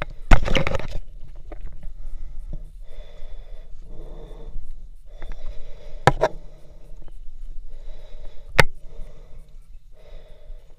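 Heavy breathing close to the microphone, a breath roughly every second, from a hiker scrambling up boulders. A loud scrape near the start and two sharp knocks, about six and eight and a half seconds in, from hands or gear against the rock.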